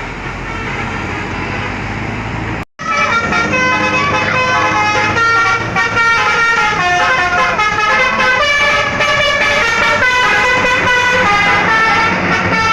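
Bus telolet musical horn, Basuri V3 type, playing: a held chord, then, after a brief break about three seconds in, a long run of quick notes stepping up and down like a tune. A bus engine runs underneath.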